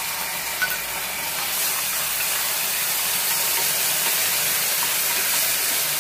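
Soy sauce and chili sauce sizzling in a hot kadhai of fried capsicum, onion and chilies, stirred with a spatula. The hiss grows louder about one and a half seconds in, and there is a single sharp tap about half a second in.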